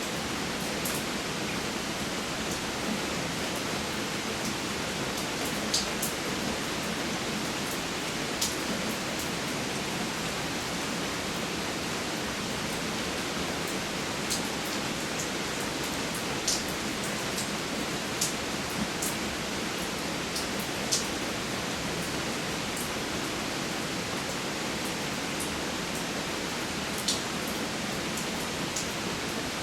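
Steady rain falling as an even hiss, with occasional louder single drops striking close by as sharp ticks, about a dozen of them scattered through.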